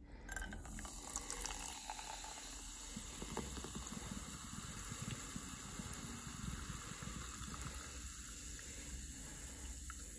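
Liquid bubbling steadily, a continuous crackling hiss.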